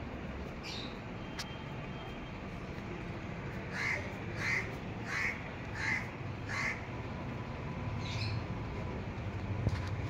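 A crow cawing: a run of five evenly spaced caws, about one and a half a second, a little under four seconds in, with a fainter single caw before and after.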